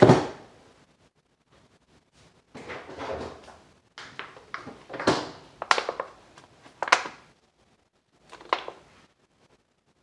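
A sharp thump at the start, then rustling and a run of sharp clicks and knocks as small objects are handled at a kitchen counter, with one more short knock near the end.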